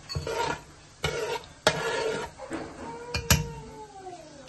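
A spatula scraping and knocking against the inside of a large metal pot while stirring panch phoron seeds in hot oil, in several short strokes. A little past three seconds comes a sharper knock, followed by a ringing tone that falls in pitch.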